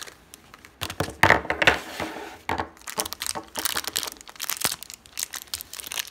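Hands crinkling and tearing open a small shiny plastic blind-bag wrapper around a toy: irregular crackles throughout, loudest in a flurry about a second in.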